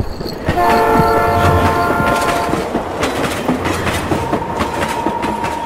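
A train sounds a chord whistle for about two seconds. Then comes the rumble and rhythmic clatter of its wheels on the rails as it passes.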